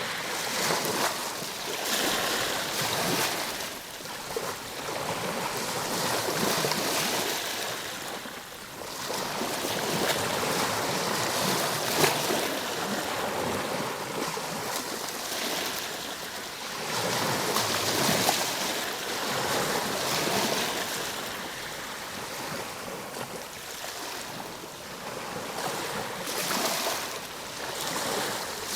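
Ocean waves breaking and washing up on the shore, the surf swelling and easing every few seconds.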